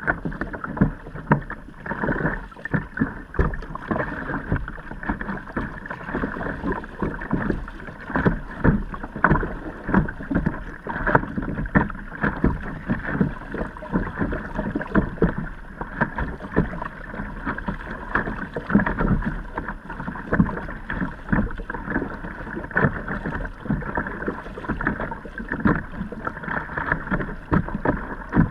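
Water splashing and sloshing around a kayak on the move, with many irregular slaps of water.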